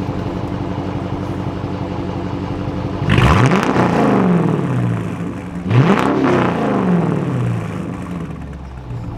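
2016 Dodge Charger R/T's 5.7-litre Hemi V8 idling through an exhaust with the mid mufflers deleted, then revved hard twice, about three and six seconds in. Each time the pitch shoots up and falls back over a couple of seconds.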